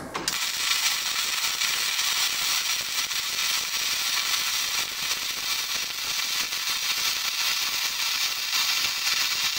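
MIG welding arc running a continuous bead on steel: a steady crackling sizzle with spatter, laying a build-up pass along an edge.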